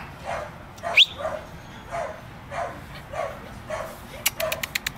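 Dogs barking over and over, a little under two barks a second, with one short rising yelp about a second in. A quick run of sharp clicks comes near the end.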